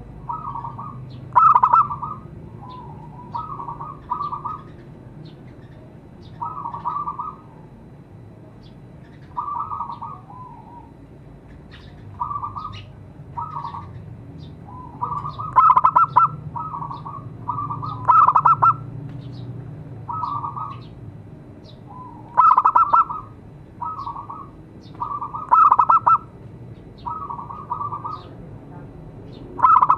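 Zebra doves (perkutut) cooing: short chopped cooing phrases, one every second or two, some loud and some fainter.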